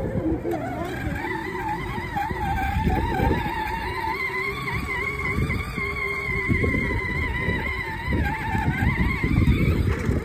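Electric drive motor and gearbox of a 12-volt Yamaha Raptor 700R children's ride-on ATV whining as it drives along, the pitch wavering a little, over a low rumble.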